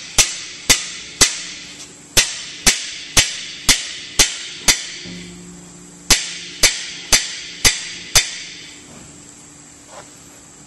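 Hammer blows on a cam bearing installer's driver bar, driving a new cam bearing into its bore in an Oldsmobile 400 engine block. Sharp, ringing metal strikes about two a second, in three runs with short pauses between them, stopping about eight seconds in.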